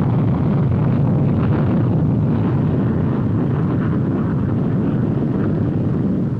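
Jet engine noise from a formation of swept-wing jets flying overhead, a steady deep rush.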